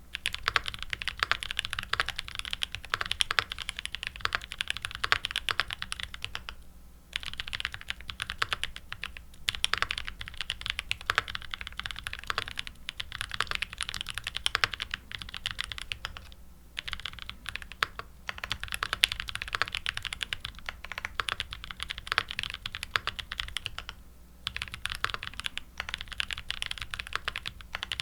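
Fast typing on a custom mechanical keyboard with lubed Gazzew Boba U4t tactile switches in an aluminum plate, under GMK keycaps: a dense run of keystrokes that stops briefly about 7, 16 and 24 seconds in.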